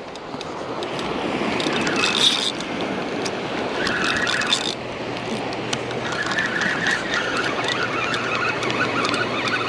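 Steady surf and wind noise at the shoreline, with a spinning fishing reel cranked in spells, its higher whirring and squeaking coming and going, as a fish is reeled in after a hit.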